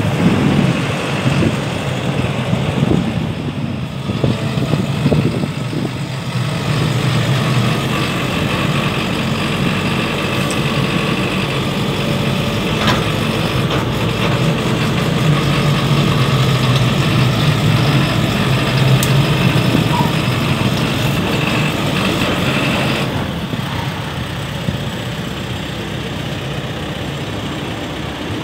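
JCB JS220LC tracked excavator's JCB diesel engine running steadily, a little quieter for the last few seconds.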